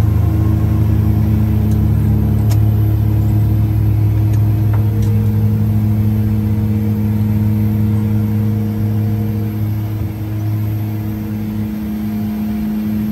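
The twin Garrett TPE331 turboprop engines of a BAe Jetstream 32 at takeoff power, heard inside the cockpit as the aircraft lifts off and climbs: a loud, steady low drone. A few light clicks come in the first five seconds, and the drone dips slightly around ten seconds in.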